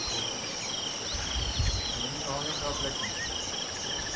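Riverside insect chorus: a steady high buzz with a slower pulsing chirp beneath it, a few short whistled glides over the top, and a brief low rumble between one and two seconds in.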